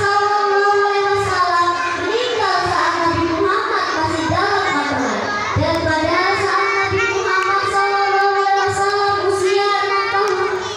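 A young girl singing solo into a handheld microphone, holding long notes with melodic turns and bends.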